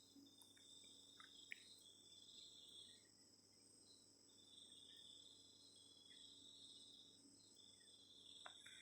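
Near silence with faint, high-pitched insect chirping that comes and goes, and a few tiny clicks.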